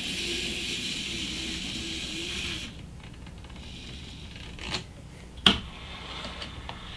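N-scale model diesel locomotive running along the layout track with a hiss and a wavering hum, which stop a little under three seconds in as the locomotive halts. Then come two sharp clicks, the second and louder one about five and a half seconds in.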